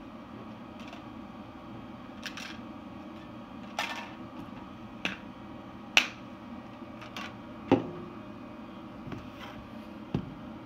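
About six sharp clicks and taps at irregular intervals over a steady low hum of room noise.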